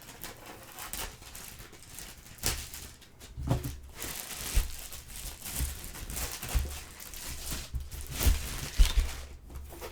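A cardboard box being opened with a folding pocket knife: packing tape slit, cardboard torn and packaging crinkling, with several short knocks from handling the box.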